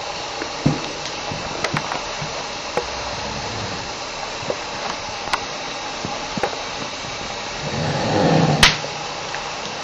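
A man snoring: one loud snore swells up near the end and breaks off with a sharp click, over a steady hiss with scattered faint clicks.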